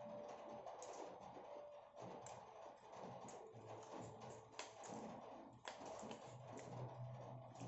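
Spoon and fork clicking and scraping against food in a takeout box, many small irregular ticks as chicken and rice are cut and scooped, with faint chewing.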